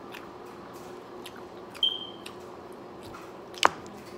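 Wet eating sounds: chewing and lip smacks with scattered small clicks, the loudest a sharp smack with a quick falling squeak a little over three and a half seconds in, over a faint steady hum.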